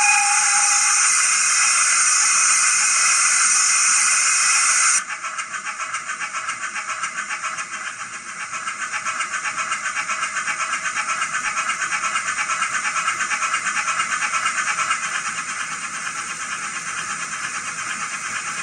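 Recorded steam sounds from a Zimo sound decoder in a Bachmann GWR prairie tank model, played through its small onboard speaker. A loud steam hiss, typical of open cylinder drain cocks, with a whistle tone dying away about a second in, cuts off suddenly about five seconds in and leaves steady rhythmic exhaust chuffs.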